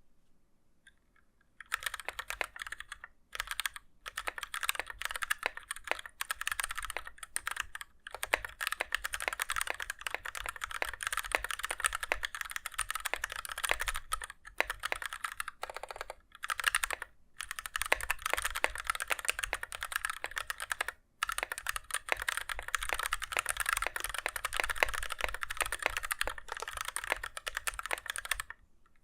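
Fast typing on a custom 60% mechanical keyboard with Gateron Red linear switches on a DZ60 PCB in a KBDFans 5° case: a dense run of key clacks, broken by a few short pauses. The typing starts about two seconds in.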